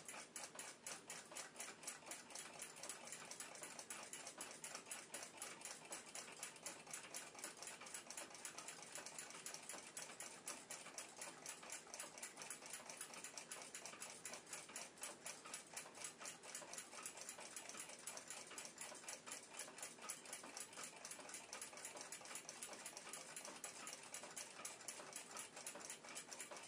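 Faint, rapid, even ticking of a mechanical clock's escapement.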